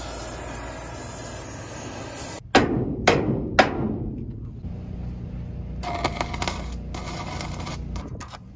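Hammer striking hot steel three times, about half a second apart, each blow ringing, after a steady hiss from an oxy-acetylene torch heating the metal to beat it back into shape. A low steady hum runs underneath.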